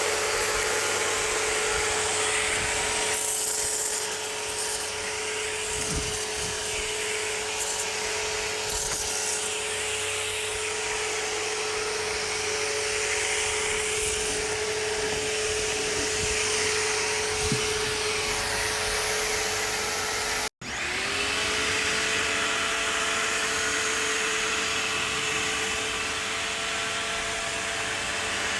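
Electric pressure washer motor and pump running steadily with the hiss of water spraying. It cuts out abruptly about two-thirds of the way through, then spins back up with a rising whine and runs on.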